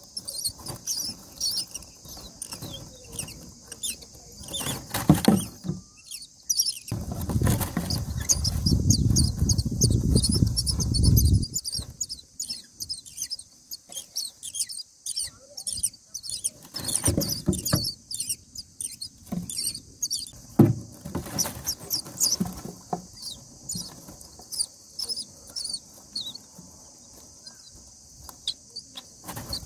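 Common myna nestlings begging with rapid, high-pitched squeaky calls throughout. A louder low rumbling noise runs from about seven to eleven seconds in, and there are a few sharp knocks.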